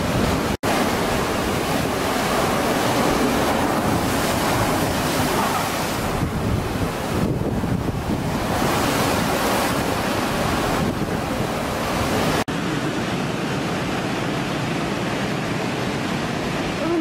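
Heavy surf breaking and washing up the beach in repeated surges, with wind buffeting the microphone. The sound cuts out for an instant twice, about half a second in and again near twelve and a half seconds in.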